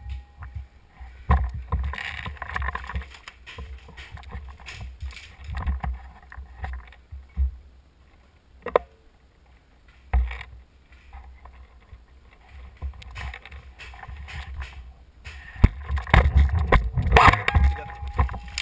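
Footsteps crunching and shuffling over broken wood slats and rubble, with scattered sharp clicks and knocks, over a steady low rumble of wind and handling on the camera's microphone. The rustling is thickest in the last few seconds.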